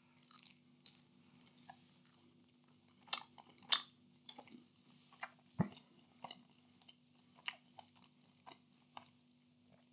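A person biting and chewing a slice of stonebaked four-cheese pizza: irregular crisp crunches of the crust, loudest about three to four seconds in, with a faint steady hum beneath.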